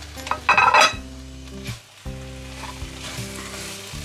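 Thick peanut chicken sauce sizzling in a pan while a utensil stirs and scrapes it, the scraping loudest a little after the start. Background music plays under it.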